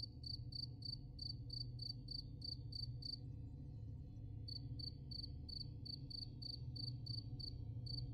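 Insect chirping, like a cricket: a high, even chirp about four times a second, which stops for about a second and a half in the middle and then picks up again, over a low steady hum.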